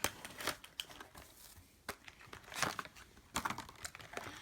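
Plastic toy packaging being crinkled and torn open by hand, in short irregular crackles and rustles.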